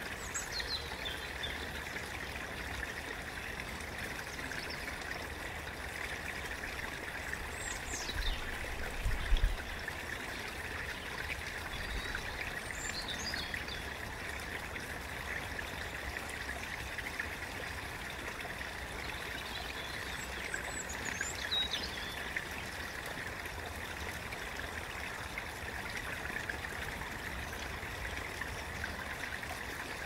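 Steady babbling of a stream, with a few short, falling bird calls now and then. A brief low rumble about nine seconds in is the loudest moment.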